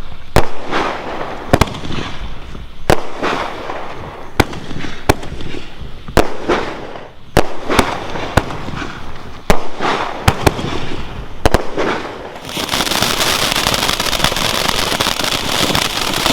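Consumer aerial fireworks firing: sharp shot reports every second or so, some with a crackle after them. About twelve seconds in, a dense, steady hiss and crackle takes over.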